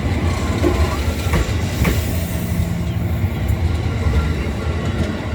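Electric train running over the rails: a steady low rumble with a few brief thin squealing tones, one falling in pitch about two seconds in.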